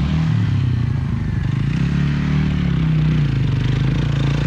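A vehicle engine running at low revs, its pitch climbing a little in the middle and easing back.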